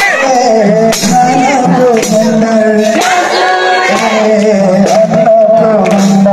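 A man singing a Nepali Deusi-Bhailo song into a microphone, amplified through a loudspeaker, over music with a percussion beat about once a second.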